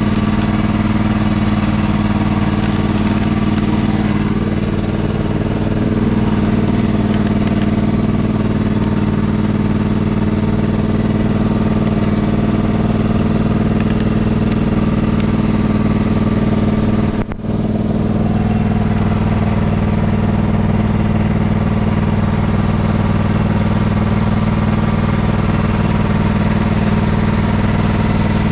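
Riding lawn mower engine running at a steady speed, with a momentary break in the sound about two-thirds of the way through.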